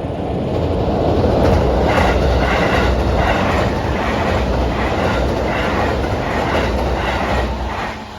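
A JR Yamatoji Line train passing close by the level crossing: a loud rush of wheels on rail with an even clickety-clack as the wheels cross the rail joints, dropping away near the end as the last car goes by.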